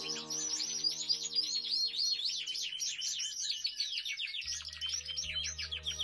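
Songbird singing in fast, repeated trilled chirps over soft background music with sustained chords; the music drops low for a few seconds and swells back in with a bass about four and a half seconds in.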